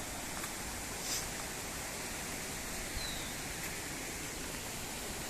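Small waterfall's water rushing steadily, with a few faint, short high chirps about every three seconds.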